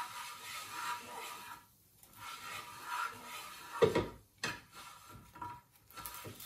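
Two long scraping or rubbing strokes against a hard surface, each lasting about a second and a half, then a heavy thump about four seconds in, followed by a few light knocks.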